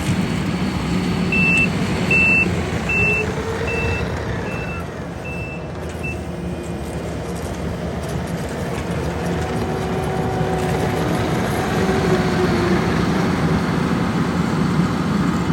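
A heavy diesel work vehicle running and backing up, its reverse alarm beeping at an even pace about three times every two seconds for several seconds near the start, then stopping while the engine keeps running.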